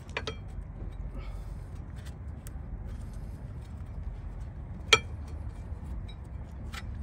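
Scattered metallic clicks and clinks as a stuck rear brake pad on a 2010 Hyundai Elantra is worked at by hand in its caliper bracket. One sharp click about five seconds in is the loudest, over a low steady background hum.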